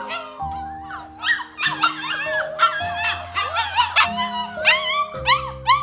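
Goldendoodle puppies whining and yipping, many short rising-and-falling cries in quick succession, over background music with held chords.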